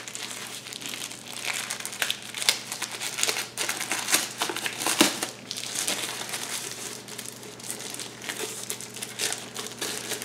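Plastic bag crinkling and crackling as hands work a small device out of it, in irregular sharp crackles; the loudest come about two and a half and five seconds in.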